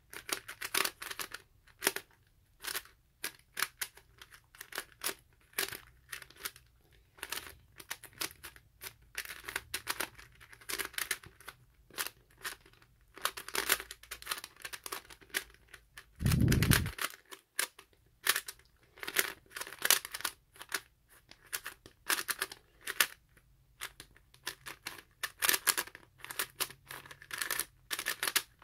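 A Lego-brick 3x3 puzzle cube being turned fast in a speedsolve: an irregular clatter of plastic clicks from the layers turning, on a cube that keeps locking up. One dull thump a little past halfway is the loudest sound.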